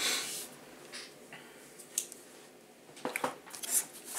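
Small cardboard mailer box being handled: a brief scrape at the start, then mostly quiet with a few light clicks and scuffs of cardboard near the end.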